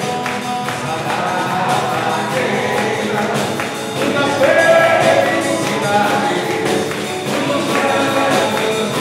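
Live band playing festa junina music: nylon-string acoustic guitar, flute and a hand drum, with a woman singing into a microphone.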